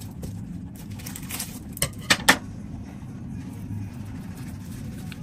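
Hands handling and folding a spring roll wrapper around the filling and cheese: soft rustling and three short clicks about two seconds in, over a steady low hum.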